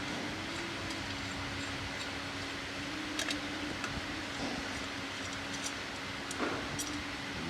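A few light metallic clicks and clinks of tools and loose engine parts during an engine teardown, over a steady background hum.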